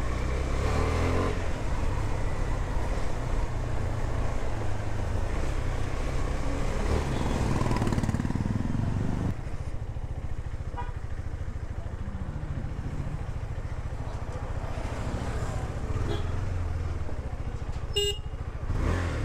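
KTM 390 Duke's single-cylinder engine running at low revs as the bike creeps along, easing off about halfway through. Near the end comes a short horn toot.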